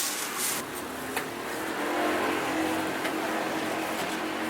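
A motor vehicle's engine running at a steady pitch, coming in about two seconds in, over general crowd and background noise.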